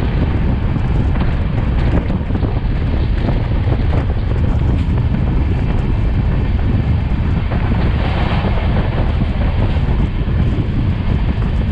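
Steady wind buffeting the microphone from the open door of a moving passenger train, with the train's running noise underneath.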